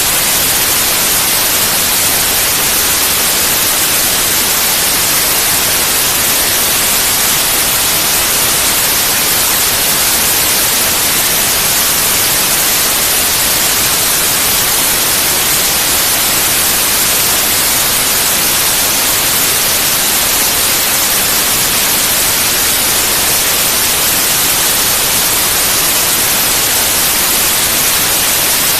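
Steady white noise: an even, unchanging hiss spread across the whole range, brightest in the highs.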